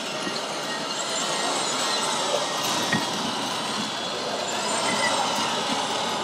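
Radio-controlled scale construction machines, among them a model wheel loader, running on a dirt course in a steady mechanical vehicle din. Busy exhibition-hall noise lies over it.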